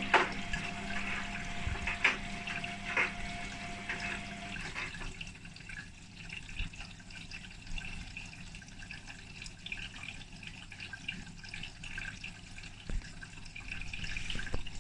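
Hotpoint WMA32 washing machine taking in water at the start of its quick-wash program, water rushing and splashing into the drum. A steady hum runs under it and stops about four and a half seconds in. A few sharp clicks come in the first three seconds.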